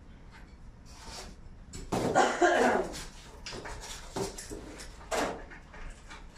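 Foam packing and plastic wrap rustling and squeaking as they are handled, with a loud squeaky scrape about two seconds in and a shorter one about five seconds in.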